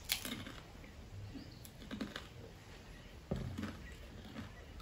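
Crunching and chewing of dry, hard water crackers, with irregular crisp crackles a few times in a few seconds.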